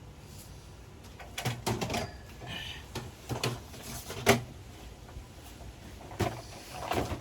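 A few separate knocks and clatters of hard objects being handled, the sharpest about four seconds in.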